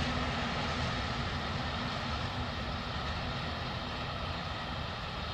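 Freight train of covered hopper wagons rolling away on the line, a steady rumble that slowly fades.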